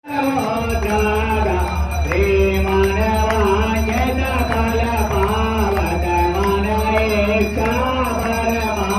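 Hindu devotional song: one voice sings a slow, wavering melody over a steady, pulsing low accompaniment.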